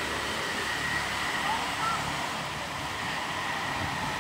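Steady rushing outdoor background noise with a faint, steady high-pitched whine through it, and two brief faint chirps about one and a half to two seconds in.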